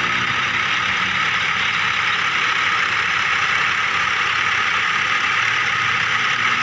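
Small electric motor and gears of a remote-control toy vehicle running with a steady whir.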